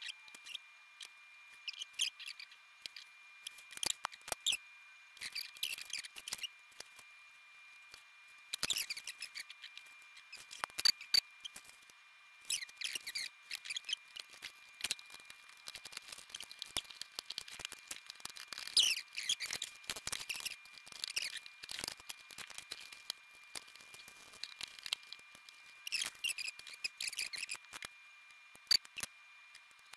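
Hands working with hookup wire and small tools: irregular small clicks, snips and scratchy scraping in clusters with short pauses, over a faint steady high whine.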